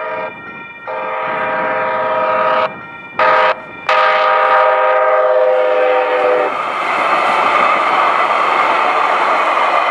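Light rail train's horn sounding the grade-crossing signal: the end of one long blast, a second long blast, a short one and a final long one. About six and a half seconds in, the horn stops and the loud rolling noise of the train's wheels on the rails takes over as it passes through the crossing.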